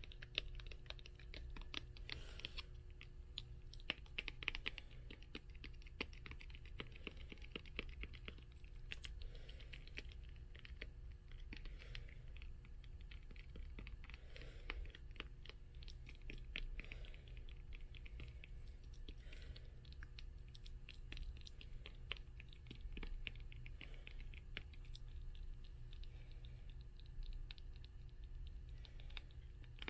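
Fingernails tapping and scratching on the cloth covers and spines of old books in quick, irregular runs of small clicks, over a steady low hum.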